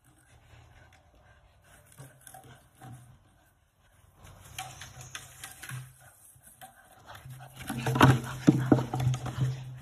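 A dog playing with a plastic bucket: a run of knocks and scrapes of plastic on grass as it mouths and shoves the bucket, louder toward the end, along with the dog's breathing.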